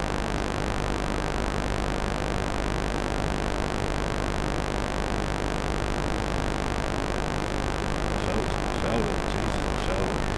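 Steady hiss with a low, even hum underneath, unchanging throughout.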